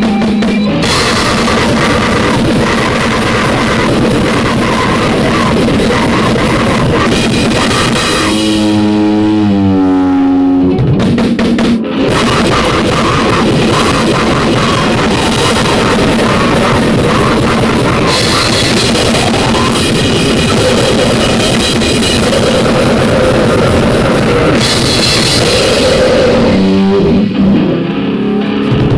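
Harsh noise music: a loud, dense wall of distorted sound with fast pulsing. About eight seconds in it gives way for a few seconds to warbling, gliding pitched tones, which come back briefly near the end.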